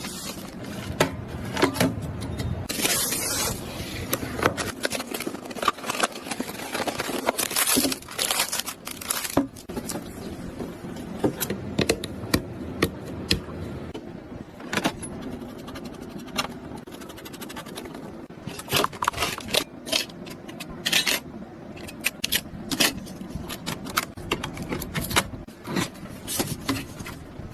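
Hard computer parts being handled and fitted together during a PC build: irregular clicks, taps and knocks, with a few longer scraping noises.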